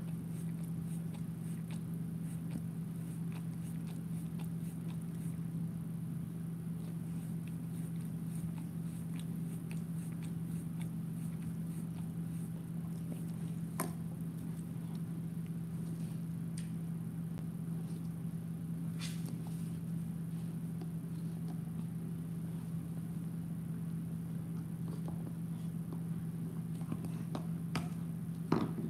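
Bernese mountain dog gnawing on a chew bone close to the microphone: scattered clicks and scrapes of teeth on the chew, with one sharp click about halfway and a louder cluster near the end. A steady low hum runs underneath.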